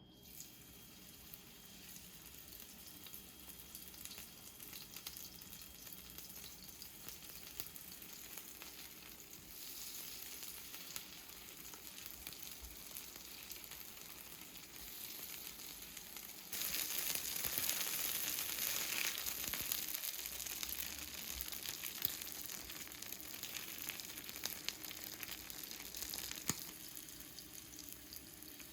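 Jeon batter sizzling and crackling in hot oil in a frying pan. The sizzle swells louder a little past halfway for several seconds, then eases back.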